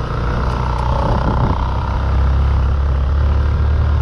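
Motorcycle engine running steadily under way, with wind and road noise on the bike-mounted microphone.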